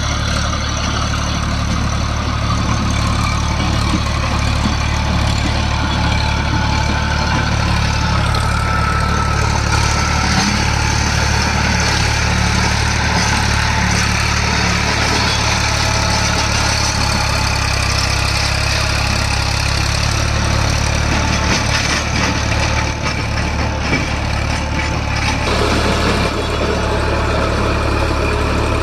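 Massey Ferguson tractor's diesel engine running steadily at a constant pace, with a rotary tiller attached for tilling the orchard soil.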